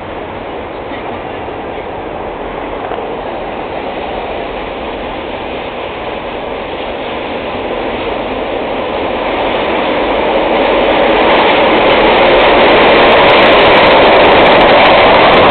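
Chicago 'L' Blue Line subway train approaching through the tunnel and pulling into an underground station, its rumble growing steadily louder from about halfway in.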